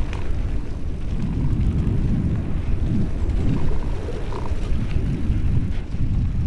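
Wind buffeting the microphone over the rumble of a Calibre Bossnut mountain bike's tyres rolling along a dirt track.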